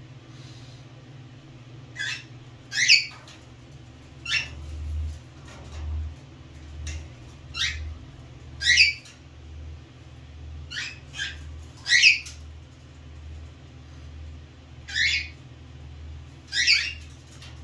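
Cockatiel giving short, sharp chirps, about a dozen spread out, a few of them much louder than the rest, over a low steady hum.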